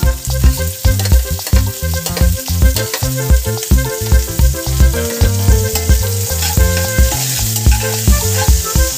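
Chopped garlic and green onion sizzling in hot oil in a stainless-steel pan, with a spatula stirring them near the end. Background music with a steady beat plays over the frying and is the loudest sound.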